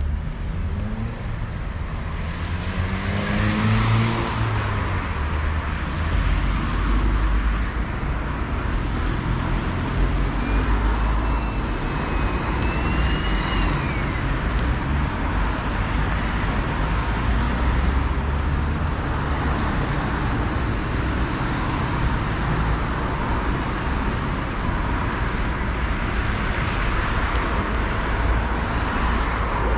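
Steady city street traffic, with cars passing close by. A few seconds in, one engine audibly speeds up, and about a third of the way through a thin, high squeal rises and then falls away.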